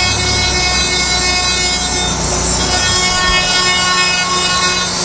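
Moore No. 2 jig grinder's high-speed spindle running with its grinding wheel cutting inside a bore: a steady whine of several high tones over a grinding hiss, as the hole begins to clean up. A low rumble underneath stops about three seconds in.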